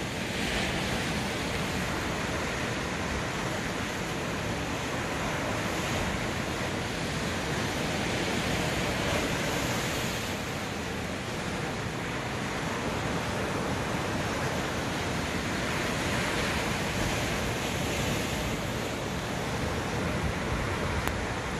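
Sea surf washing onto the shore: a steady rush that swells gently every few seconds.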